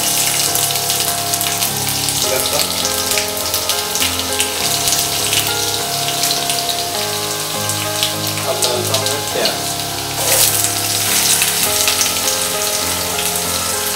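Chopped ingredients sizzling and crackling in hot oil in a non-stick kadhai, growing louder about ten seconds in as chopped onion goes into the pan. Background music with sustained notes plays underneath.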